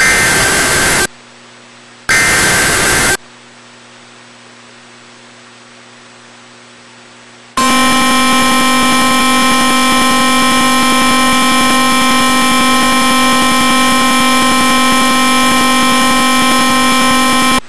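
Emergency Alert System tornado warning signal. Two harsh, screeching SAME digital header bursts of about a second each are followed by a few seconds of low hum. About halfway through, a loud, steady, harsh buzzing attention tone starts and holds for about ten seconds.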